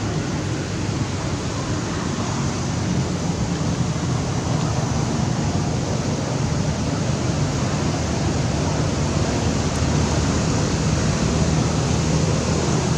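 Steady, loud rushing noise with no distinct events, growing slightly louder a few seconds in.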